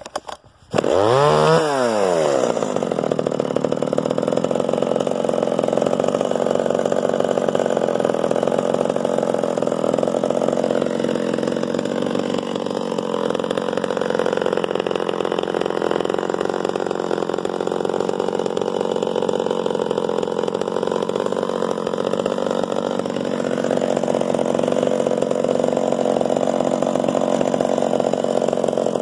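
Zenoah G300 two-stroke chainsaw engine starting about a second in, revving up and dropping back once, then running steadily.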